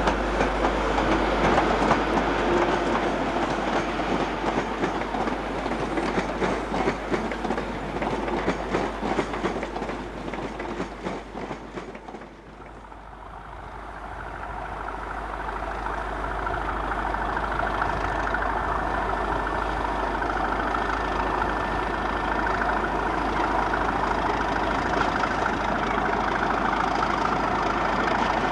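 A Class 91 electric locomotive and coaches running past, wheels clattering over rail joints, dying away about twelve seconds in. Then a Class 37 diesel-electric locomotive's English Electric engine running steadily with a high whine.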